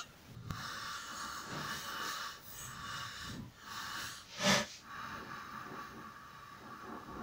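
Slow, rasping hand strokes of a needle file and polishing stick across a silver-steel cam lobe nose, profiling the nose radius by hand, with one much louder stroke a little past halfway.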